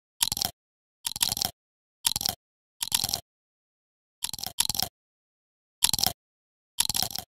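Short crunching, biting sounds, about one a second with dead silence between them, as the hens peck at feed; a couple of bursts come as quick doubles, such as one about halfway through.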